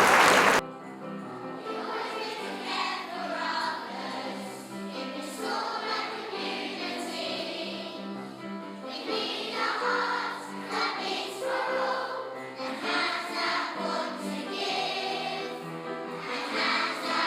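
Applause that cuts off abruptly about half a second in, followed by a choir singing a song with sustained notes.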